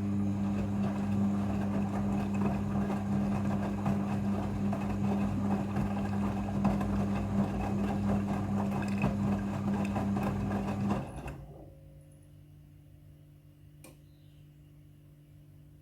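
Midea front-loading washing machine running in its rinse cycle: a steady low hum with a rushing, churning noise over it, which stops suddenly about eleven seconds in. A single faint click follows near the end.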